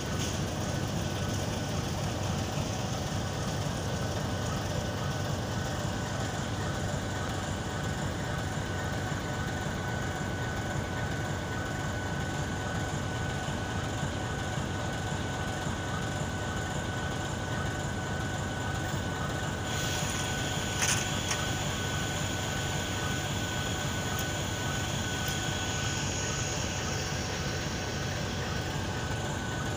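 Diesel locomotive running steadily, a low rumble with a thin steady whine over it. One sharp click about two-thirds of the way through.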